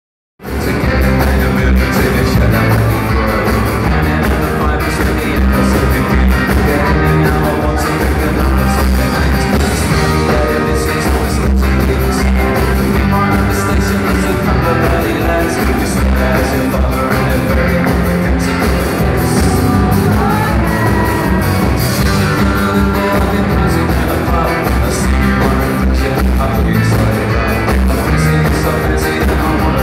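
Live rock band playing through a concert PA, with acoustic and electric guitars, bass and drums, heard loud from the audience.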